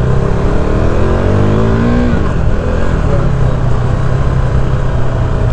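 KTM RC 390's single-cylinder engine accelerating: the revs climb steadily for about two seconds, then drop as it shifts up, and it runs on at a steady pace with wind rush over the microphone.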